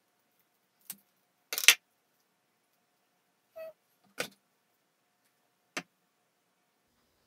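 A cutting tool snipping through a Philodendron pedatum stem to take the air-layered top cutting: a handful of short, sharp clicks and snips spread over several seconds, the loudest a longer crunch about one and a half seconds in.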